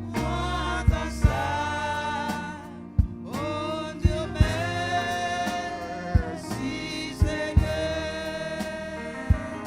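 Gospel music: sung or held melodic lines over a bass line, with sharp drum hits about once a second.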